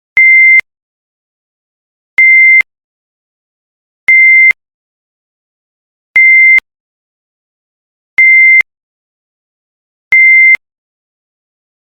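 Electronic countdown-timer alarm sounding time's up: six short, high beeps of one steady pitch, each under half a second, evenly spaced about two seconds apart.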